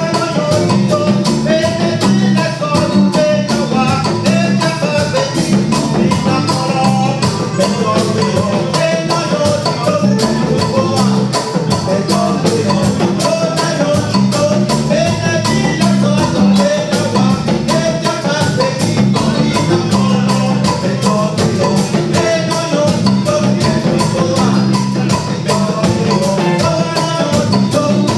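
Music with a fast, steady percussion beat and a melody over it.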